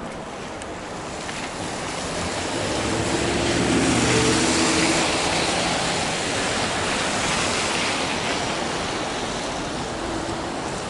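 A motor vehicle driving past on the street: a hiss of tyres and engine swells to a peak about four seconds in, with a low engine hum at the loudest point, then slowly fades.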